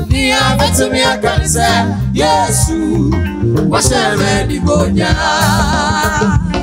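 Live band music with singing: vocalists singing into microphones over electric guitar, keyboard and bass with a steady beat. Near the end a sung note is held and wavers.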